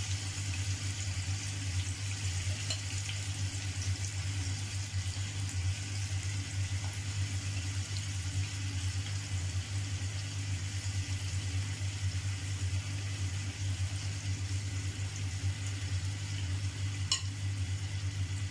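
Marinade-coated chicken pieces frying in oil in a nonstick pan: a steady sizzle with small crackles, over a low steady hum. A single sharp click near the end.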